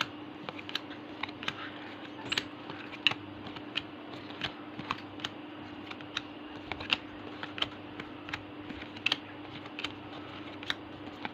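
Trading cards being handled and laid down one at a time, each making a short sharp click, irregularly, about one or two a second, over a steady low hum.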